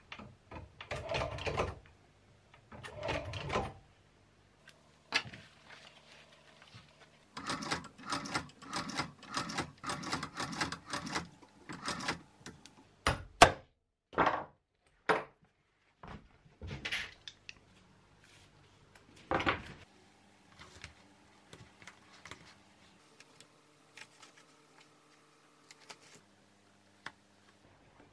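Leather-workshop sounds: an industrial sewing machine stitching leather in short runs, then a few sharp hammer blows on a lace-hook setting tool, among clicks and knocks of handling.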